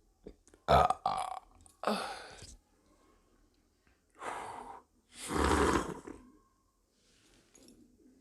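A woman belching repeatedly: about five burps, two short ones close together, a longer one, then two more, the last the longest and loudest.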